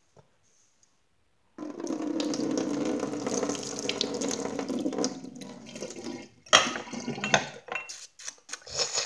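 Water running steadily for about five seconds, then cutting off, followed by a few sharp knocks and handling noises.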